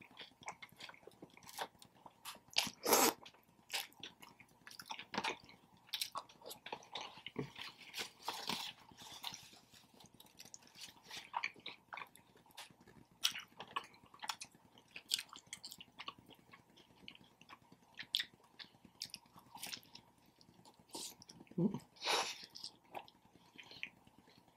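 Close-up chewing and biting of a Subway footlong sub sandwich: irregular wet mouth clicks and smacks, louder about three seconds in and again near the end.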